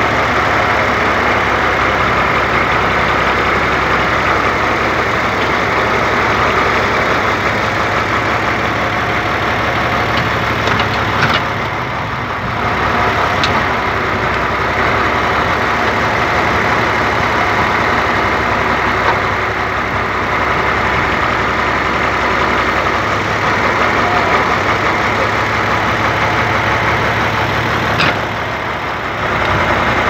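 Backhoe's diesel engine running steadily while the hydraulic arm digs a trench. Twice, a sharp click is followed by a brief dip in the engine sound.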